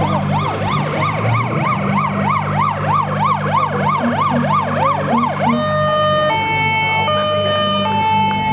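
A vehicle siren sounding a fast wail that rises and falls about three times a second. About two-thirds of the way in it switches to a steady hi-lo two-tone, with a low steady hum underneath.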